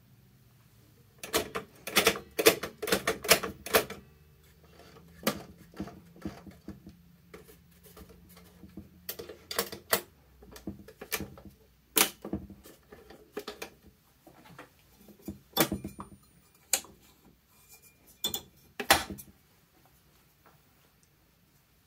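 Irregular sharp clicks and knocks from hand-setting the controls of a vintage Baby Lock Companion 722 sewing machine. The clicks come in a quick run over the first few seconds, then as scattered single clicks, without the machine stitching.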